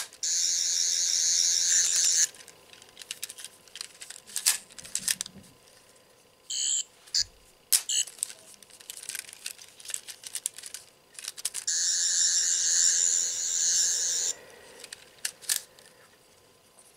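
11th Doctor sonic screwdriver toy playing its electronic buzzing sound effect twice, about two seconds each, near the start and about two-thirds of the way in, with a short blip between. Scattered plastic clicks in between.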